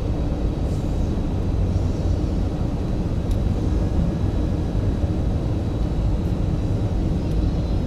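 Steady cabin noise inside a jet airliner on its landing approach: a constant low rumble of engines and rushing air, without any break.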